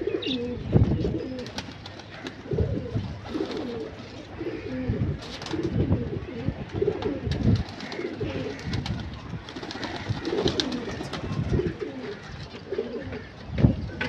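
A flock of domestic pigeons cooing over and over, many low wavering coos overlapping one another.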